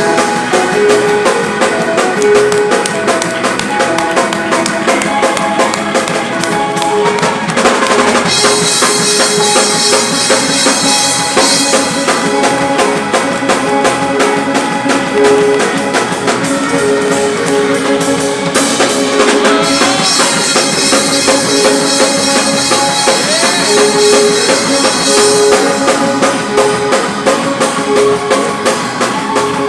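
Live church band playing a praise break: a drum kit keeping a steady beat under a short melodic figure that repeats over and over.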